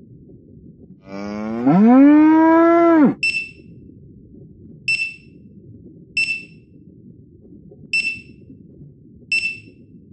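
A cow moos once for about two seconds, its pitch rising at the start and then holding steady. Five short, high, bright dings follow at uneven gaps of a second or two.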